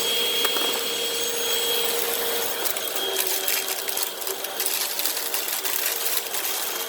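Hoover WindTunnel upright vacuum running with a steady whine, sucking up dry debris. From about two and a half seconds in, grit and bits crackle and rattle through it.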